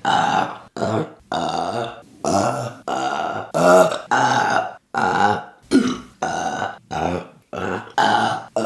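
A woman burping, a rapid string of about a dozen separate burps one after another, each cut off abruptly, many with a low, wavering pitch.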